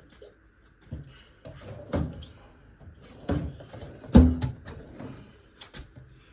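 Tools being rummaged through in a toolbox: a run of separate metallic knocks and clanks with drawer handling, the loudest clank about four seconds in.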